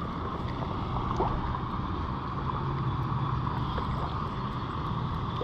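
Steady rush of flowing river water with some wind on the microphone.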